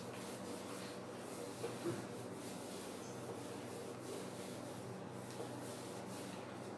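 Cloth wiping marker writing off a whiteboard: faint, repeated rubbing strokes over a low, steady hum.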